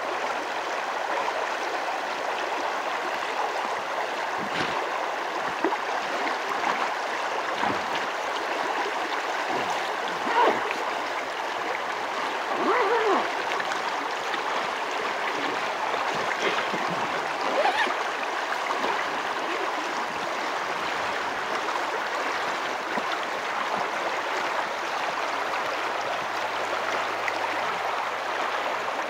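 River water running steadily, a constant rushing flow.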